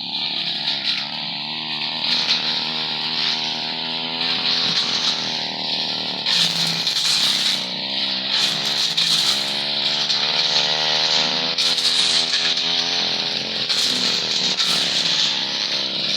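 Brush cutter's small engine running at high revs, its pitch wavering up and down as the cutter works through grass.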